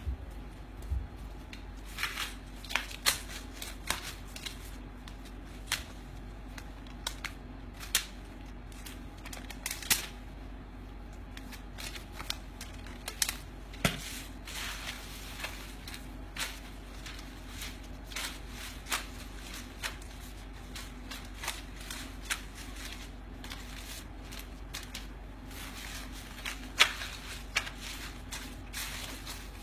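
Paper banknotes (US $100 bills) being handled and flicked through by hand, with sharp papery snaps coming irregularly about once a second, sometimes several in quick succession.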